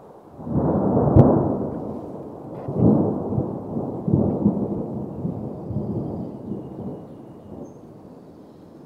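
A low, muffled rumbling noise that swells and fades in several waves, with a sharp crack about a second in.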